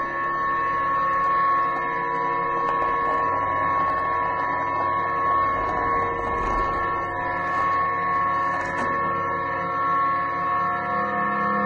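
Ambient background music of sustained drone-like tones held steady, with a lower note coming in near the end.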